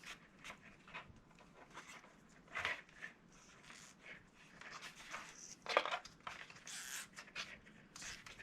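Soft, scattered rustles and scrapes of hands working cardboard parts while tying a rubber tie strap in place.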